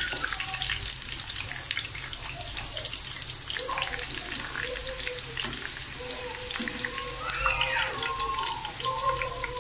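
Potato fries deep-frying in hot oil in a karahi: a steady crackling sizzle with scattered small pops. A faint voice sounds in the background from about four seconds in.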